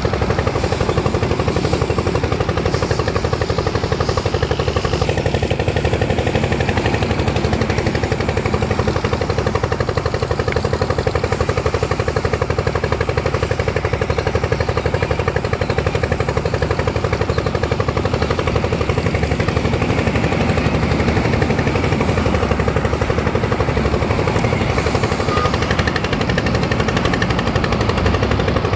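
A nearby engine running at a steady idle: a rapid, even clatter that neither rises nor falls.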